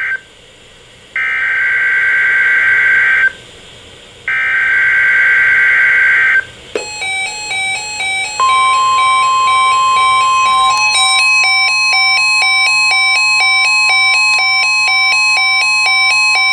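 Emergency Alert System alert on NOAA Weather Radio: three warbling SAME data bursts about a second apart, the coded header of a Tornado Watch. Then a rapidly alternating electronic alarm beep starts, and a second or so later the steady 1050 Hz weather radio warning tone sounds over it.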